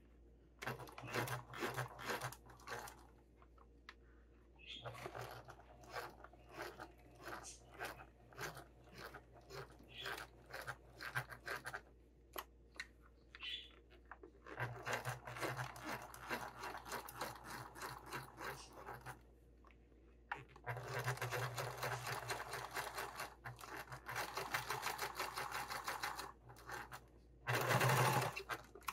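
Electric sewing machine top-stitching through vinyl, running in five short runs with brief pauses while the work is turned around a curve: a motor hum under evenly spaced needle strokes. The strokes are slow and distinct in the first runs and come faster in the later ones, with a short, louder run near the end.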